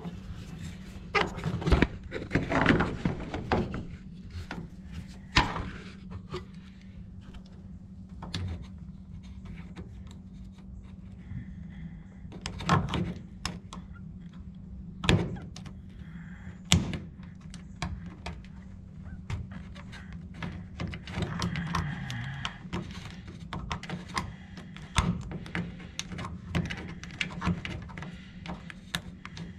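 Scattered thunks, clicks and knocks of tools and metal parts being handled while body bolts and their holes are checked, over a steady low hum.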